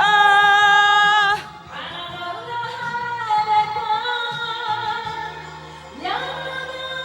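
A woman singing an enka ballad over a karaoke backing track. She holds a long note with vibrato that breaks off about a second and a half in, then the accompaniment plays on alone until she comes back in with a rising line near the end.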